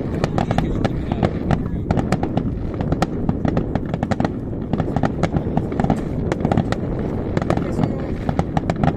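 Aerial fireworks bursting and crackling: a rapid, unbroken string of sharp pops over a low rumble.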